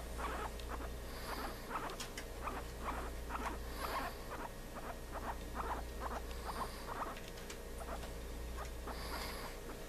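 Guinea pig making an irregular run of short soft clicks, a few a second, with four faint high squeaks spread evenly through. A steady low electrical hum runs underneath.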